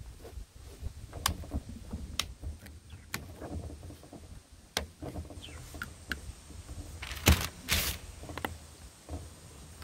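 Scattered small plastic clicks and taps as a laptop's lid and screen bezel are pressed and handled. About seven seconds in, two short, louder rustles of plastic sheeting.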